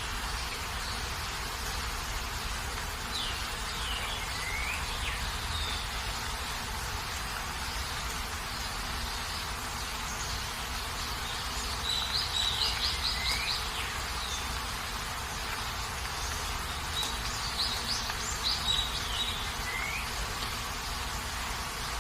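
Steady rain hiss with birds calling over it: a few sweeping chirps early on, a quick trill of short notes about halfway through, and another run of notes and a chirp near the end.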